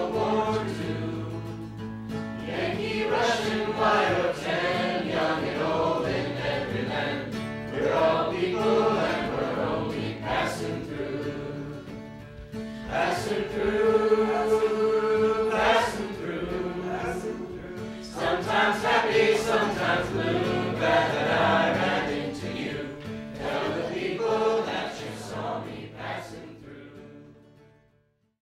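A group of voices singing together in long, slow phrases over a steady low note, fading out at the end.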